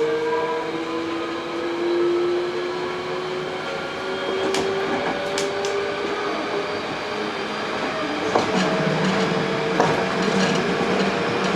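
Hankyu 8000 series train running, heard from inside the car: its Toshiba GTO-VVVF inverter and traction motors give a whine whose pitch rises slowly as the train picks up speed. About eight seconds in the whine fades, leaving running rumble and wheel clicks over the rail joints.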